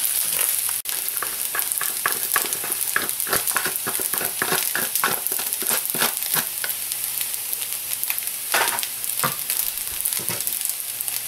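Fried rice with natto just added sizzling gently in a pan, a spatula stirring and scraping it in quick repeated strokes, about two or three a second, with a few heavier scrapes near the end.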